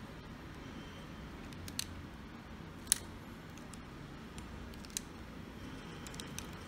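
A few sharp plastic clicks as a DJI Osmo Action camera is handled in its plastic frame mount, the loudest about three seconds in, over a faint steady hiss.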